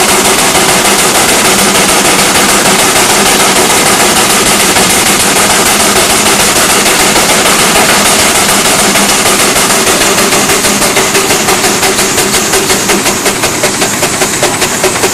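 Steam traction engine running fast, its exhaust chuffing in a rapid, even beat. The beats stand out more distinctly in the last few seconds.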